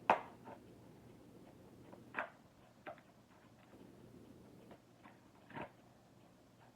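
Packaging being handled: a few scattered clicks and rustles, the sharpest right at the start and others about two, three and five and a half seconds in.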